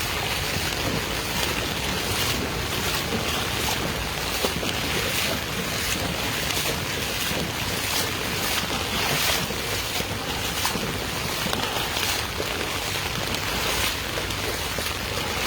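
Steady hiss of rain falling on a flooded street, with wind buffeting the microphone.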